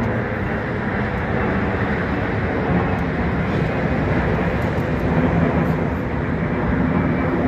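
Jet airliner engines running with a steady, even rumble that does not rise or fall.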